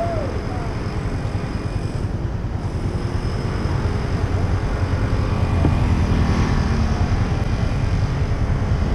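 Steady low rumble of motor vehicle engines and street traffic, growing a little louder after about five seconds.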